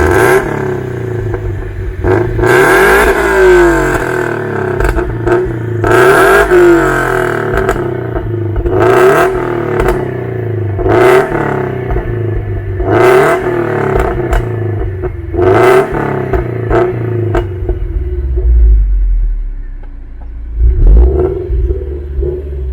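Toyota GT86's flat-four engine revved repeatedly, a blip every two to three seconds, each followed by pops and crackles from the exhaust as the revs fall, the sign of a pops-and-crackles tune. It drops back to idle briefly near the end.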